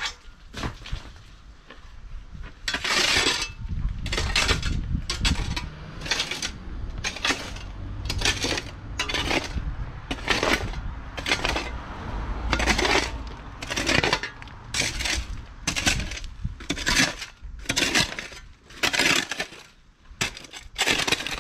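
Steel shovel repeatedly driven into stony soil mixed with broken brick and rocks, each stroke a short scraping crunch, about one to two a second.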